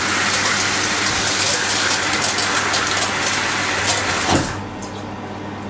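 Mira electric shower spraying water, now running after its solenoid valve coil was replaced; the spray stops about four and a half seconds in.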